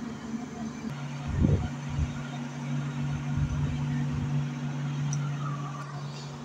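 Heavy diesel engine idling with a steady low hum, and a brief low thump about a second and a half in.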